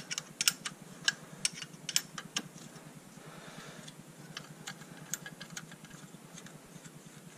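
Hand ratchet clicking in short runs as a lower intake manifold bolt is turned, the sharp ticks coming thick in the first couple of seconds and sparser after.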